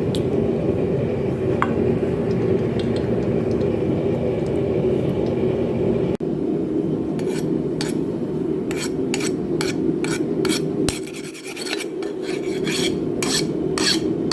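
A steady low rushing noise, joined about six seconds in by a run of quick, sharp scraping strokes of steel on steel, typical of a file skating across freshly quenched, hardened steel to check its hardness.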